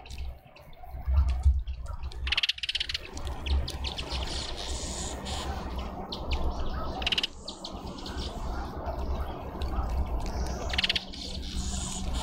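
Small birds chirping at a garden feeder: three short bursts of rapid high chirps and some fainter scattered calls, over a steady low rumble.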